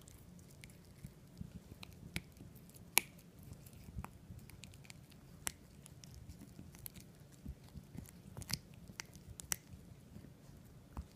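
A Yorkshire terrier chewing and biting, with irregular sharp clicks, the loudest about three seconds in.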